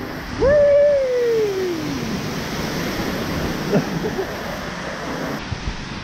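Steady rushing of a waterfall. About half a second in, a man's long wordless vocal sound holds, then slides down in pitch over nearly two seconds.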